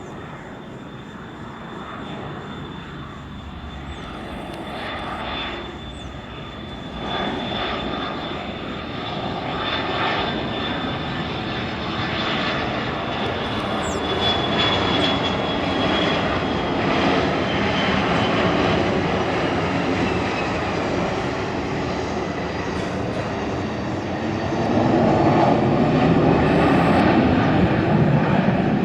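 Boeing 727-200 freighter's three Pratt & Whitney JT8D turbofans, growing steadily louder as the jet nears. A high whine sags slightly in pitch midway, and the noise is loudest near the end.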